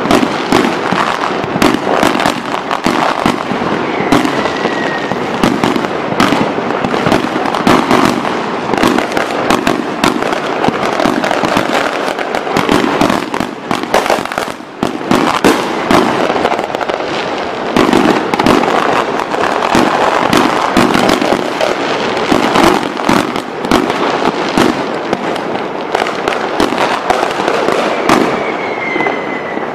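Large aerial fireworks display: a dense, continuous barrage of shell bursts, the bangs overlapping one another. There is a brief lull about halfway through.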